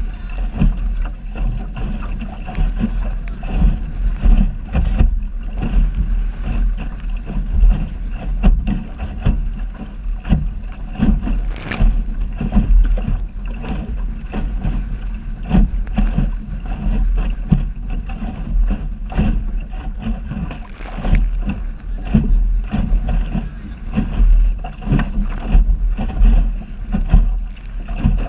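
Wind buffeting the microphone and water slapping and rushing along the hull of a small sailing dinghy under way in choppy water: a constant low rumble broken by frequent irregular thumps and splashes.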